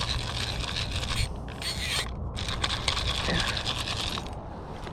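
Zebco push-button spincast reel working against a hooked fish: rapid ratcheting clicks and gear whir, with a couple of short breaks.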